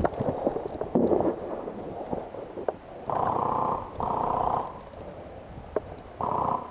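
Airsoft electric guns firing short full-auto bursts, each a rapid buzzing rattle under a second long: two bursts back to back about three seconds in and another near the end, with scattered clicks and knocks before them.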